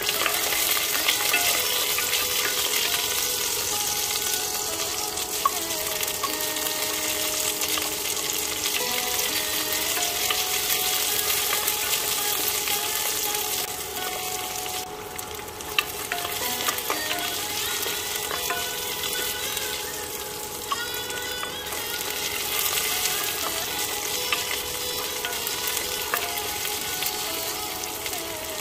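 Garlic, sliced shallots and dried red chillies sizzling and crackling in hot oil in an enamelled cast-iron pot, stirred with a wooden spatula, with an occasional tap of the spatula on the pot. The sizzle eases briefly twice, around the middle and again about two-thirds of the way through.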